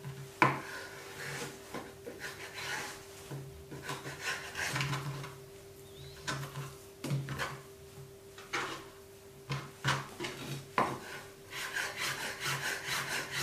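Kitchen knife cutting through stacked ham slices, the blade scraping and knocking on a cutting board in irregular strokes. A faint steady hum runs underneath.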